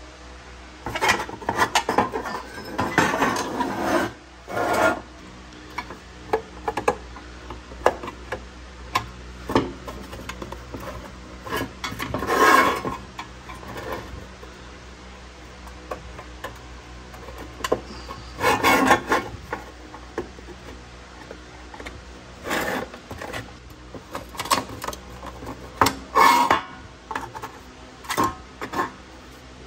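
Hand scraping and rubbing strokes on a workpiece, in irregular clusters separated by pauses, over a steady low background hum.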